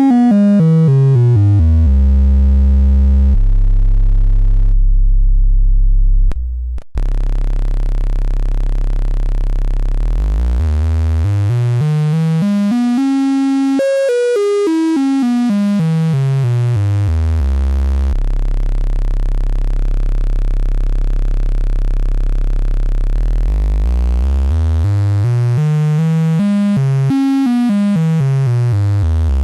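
Raw analog synthesizer oscillator from a 4027 VCO, buzzy and rich in overtones, holding a low drone with slow pitch sweeps that rise and fall twice. It is heard alternately raw and through the CP3- discrete-transistor mixer, which adds saturation and clipping, with a brief dropout about six seconds in.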